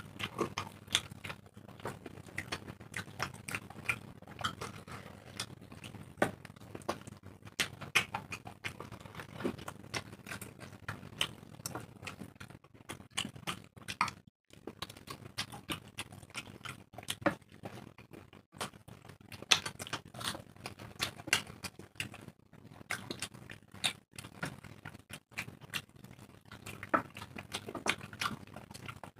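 Two people eating roti and chickpea ghugni with their hands, close to the microphone: wet chewing, lip smacks and squelching curry in a rapid, irregular run of small clicks and smacks.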